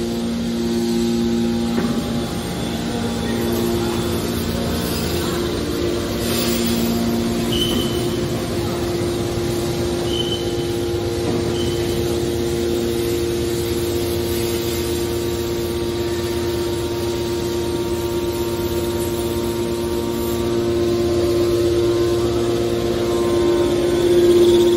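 Hydraulic scrap-metal baler running: a steady mechanical hum from its motor and hydraulic pump, with a few short high squeaks partway through.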